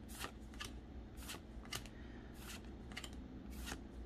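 Pokémon trading cards sliding against each other as they are flipped one at a time from the front of a hand-held stack to the back: a series of soft, short swishes, about one every half second.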